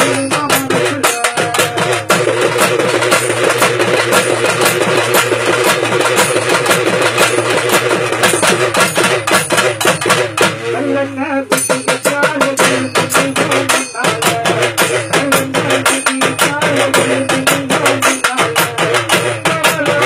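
Urumi melam drum ensemble playing: fast, dense drumming with the urumi drums' sustained rubbed tones. Just after the middle the strokes thin for about a second under a falling glide, then the full drumming resumes.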